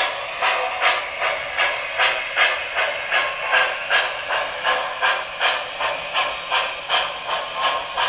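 Steam chuffing from an MTH O-scale model steam locomotive's onboard sound system: an even beat of about two and a half hissing chuffs a second, with little bass.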